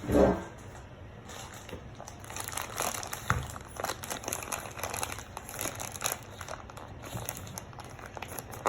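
Plastic packaging crinkling and crackling as a mailed package is handled and pulled at to open it, after a brief loud sound right at the start.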